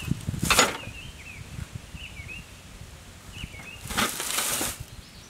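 A Husqvarna riding-mower deck being shoved under the mower across grass: two bursts of scraping and rustling, about half a second in and again near four seconds, with small knocks between. A small bird chirps repeatedly in the background.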